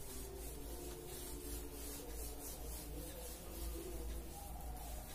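Whiteboard being wiped clean by hand, a run of rubbing strokes across the board surface.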